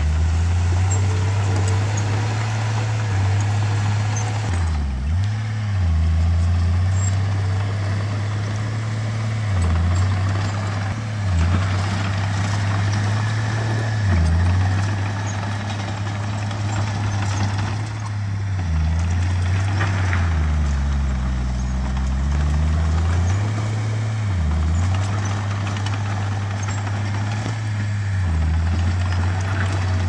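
Heavy earthmoving machine's diesel engine running loudly, its pitch dipping briefly every few seconds, with a longer, deeper drop about twenty seconds in.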